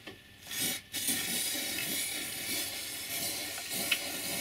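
Aerosol spray paint can hissing: a short spurt about half a second in, then a long steady spray.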